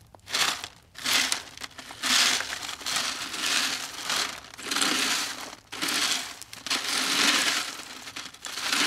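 A hand raking clumped dirt, pebbles and wood bits across a wire-mesh sifting screen: a rough, crunching scrape in repeated strokes about a second apart.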